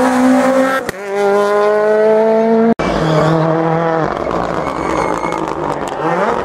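Rally car engine revving hard through a hairpin, its note climbing with two brief breaks, about a second in and near three seconds. The note then drops and fades as the car pulls away, and near the end the next rally car's engine is heard rising.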